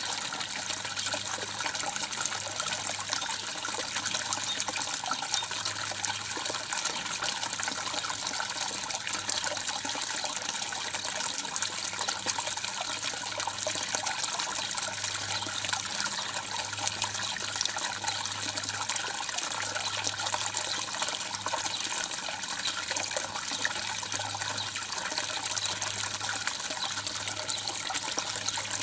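Water from a garden pond's water feature running and splashing into the pond, a steady trickling wash of sound.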